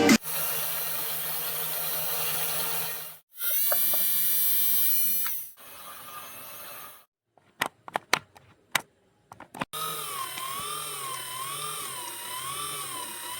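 A small electric motor or hand drill whirring in short runs, a higher-pitched whir in the second run, followed by a few sharp clicks. Near the end comes a warbling electronic tone that rises and falls about twice a second.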